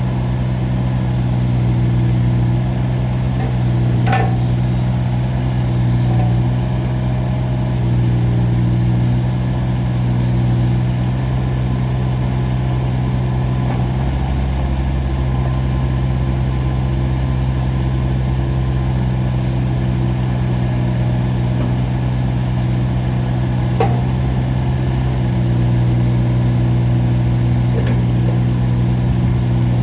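Kubota U17-3a mini excavator's three-cylinder diesel engine running steadily. For about ten seconds in the middle its tone changes, with more low rumble, before it settles back. A couple of faint knocks can be heard.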